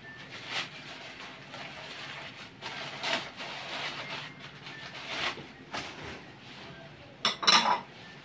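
Newspaper wrapping crinkling and rustling in short bursts as ceramic plates are unwrapped by hand, with a louder clatter near the end.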